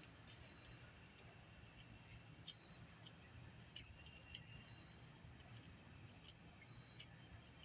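Insects chirping in short, high, evenly repeated chirps, about two a second, with a few faint clicks.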